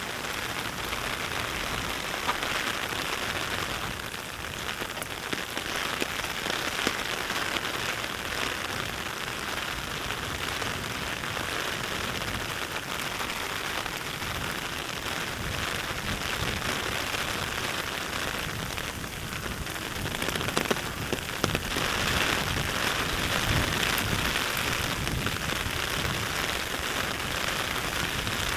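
Heavy rain falling and pattering on surfaces, a steady hiss dense with small drop ticks, growing a little louder about two-thirds of the way through.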